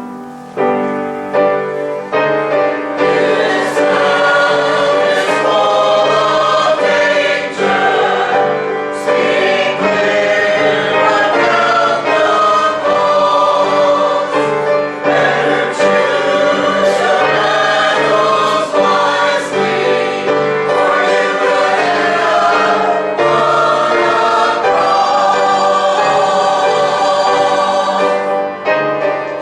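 Choir singing with piano accompaniment, a number from a church cantata.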